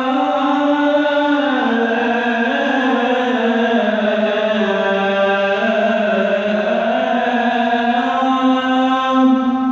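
A man's solo voice chanting the adzan, the Islamic call to prayer. It holds one long melismatic phrase whose pitch winds slowly up and down, and the phrase trails off at the very end.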